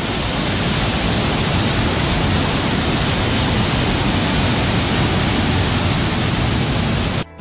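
White water of a waterfall cascade rushing over boulders: a loud, steady, even rush that cuts out for a split second near the end.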